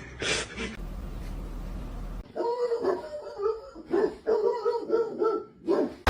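A dog giving a quick run of short, pitched whining yips, about half a dozen, starting about two seconds in.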